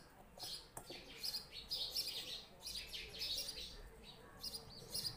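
Small birds chirping over and over in short, high, thin calls, with a faint steady hum underneath.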